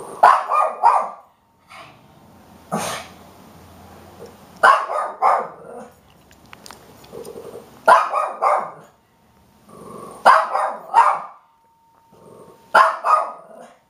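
Shih Tzu puppy barking in quick bursts of three or four sharp barks, a burst every two to three seconds, with one single bark early on.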